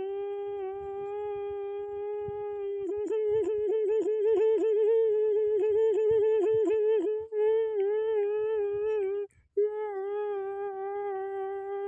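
A human voice humming one long, steady note. About three seconds in it wavers and quavers for a few seconds, then steadies again. There is a short break, like a breath, about nine seconds in before the note resumes.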